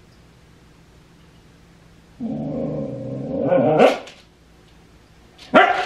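Siberian husky puppy talking at her own reflection in a glass cabinet door: one long pitched call that rises and grows louder, then a short bark near the end.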